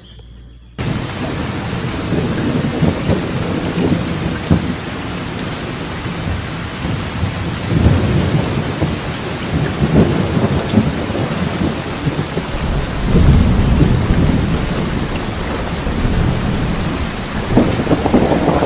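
Heavy rain, a loud steady hiss that starts suddenly about a second in, with low rumbles swelling every few seconds.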